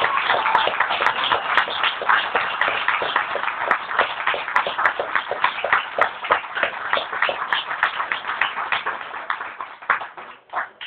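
Audience applause, dense claps that thin out and stop about ten seconds in with a few last scattered claps.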